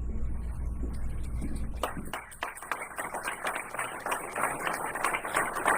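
Audience applauding, the clapping starting about two seconds in over a low steady hum.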